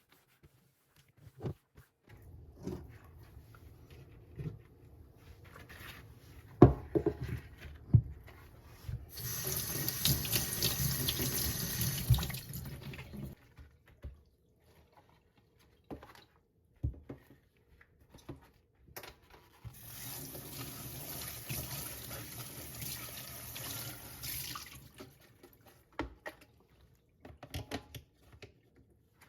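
Kitchen sink tap running in two spells of a few seconds each, water hitting the sink, with sharp knocks and clatter of items being handled before and between them.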